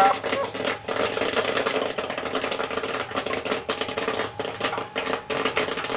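Popcorn popping in the kettle of a 12-volt popcorn machine, many quick irregular pops over the machine's steady hum.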